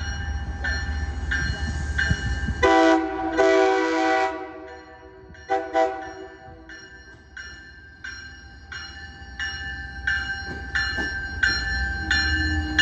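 MBTA commuter train's multi-note horn sounding one long blast of about a second and a half, then a short toot a couple of seconds later, over a bell ringing steadily and the low rumble of the train.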